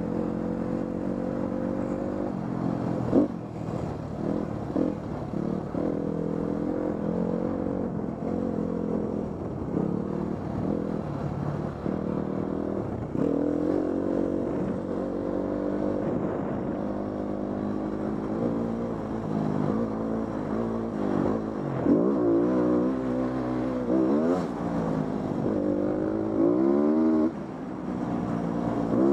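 Off-road dirt bike engine heard close up from the riding bike, running steadily at first, then rising and falling in pitch with throttle and gear changes through the second half, with a few sharp knocks over the bumpy trail.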